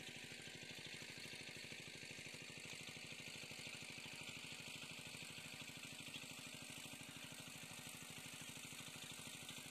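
Faint small engine running steadily, with a fast, even pulse under a light hiss.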